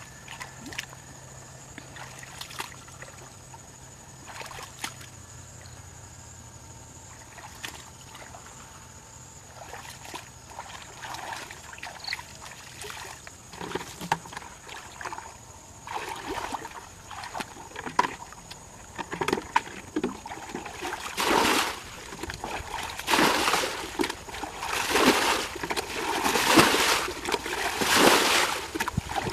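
Water being bailed out of a muddy stream with a plastic bucket: faint scattered splashes and trickles at first, then, from about two-thirds of the way in, loud splashes every second or two as bucketfuls are scooped and thrown out. This is the draining of a stretch of stream to get at the fish.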